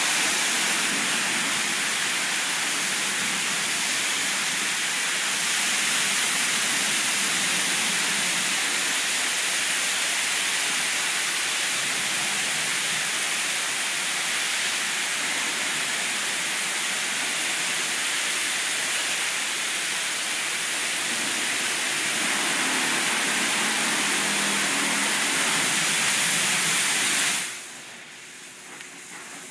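PDQ LaserWash touchless car wash's high-pressure water jets spraying a car, a loud, steady hiss of water. The spray cuts off suddenly near the end, leaving a much quieter background.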